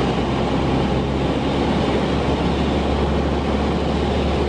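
Steady cabin noise of a light propeller airplane in cruise: the engine and propeller run at a constant deep hum, with air rushing over the cabin.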